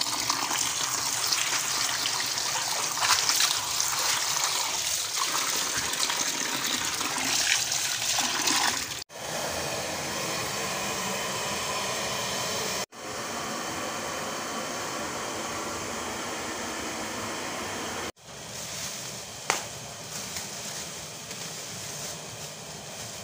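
Tap water running and splashing onto pieces of meat in a plastic colander as they are rinsed by hand. The steady rush cuts off sharply three times, with a steadier, smoother hiss in the middle stretches and a single sharp click near the end.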